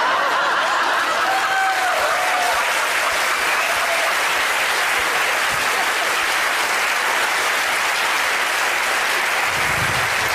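Studio audience applauding steadily, with a few voices calling out over it in the first few seconds.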